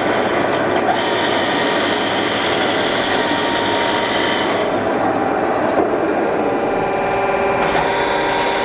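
Defum KNA 110/135 vertical turret lathe's side head rapid-traversing in and out: a steady machine hum and whine made of several held tones, with a higher whine from about one second to four and a half seconds in.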